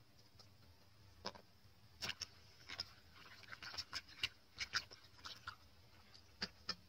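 Hands washing cucumbers in a plastic bowl of water: light splashing with scattered small knocks and clicks, busiest in the middle.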